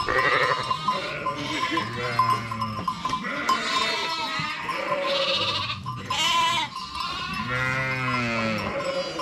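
Sheep and lambs bleating, many calls overlapping, some deep and some high-pitched.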